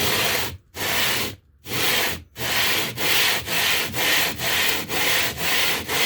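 A limestone block slides back and forth on a sheet of glass over wet coarse grinding powder, lapping the stone flat. It makes a gritty scraping in repeated strokes, slow at first, then steadily about two strokes a second.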